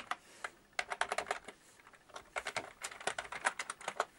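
Typing on a Sinclair QL's membrane keyboard: quick runs of light key clicks with a short pause near the middle, as the repaired keyboard is tested.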